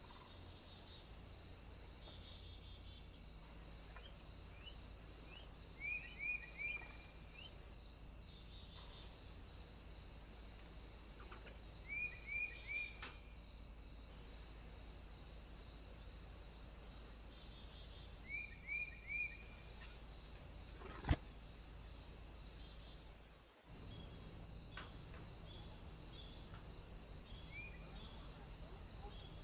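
A bird calling in quick groups of three short rising chirps, three times about six seconds apart. Under it runs a steady high hiss with faint, evenly spaced ticking, and there is one sharp click about two-thirds of the way in.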